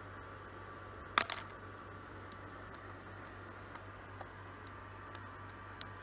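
A lutino cockatiel knocking and stepping about on a tabletop with a plastic ring toy. There is one loud, sharp clack a little over a second in, then about nine light, sharp ticks at uneven gaps.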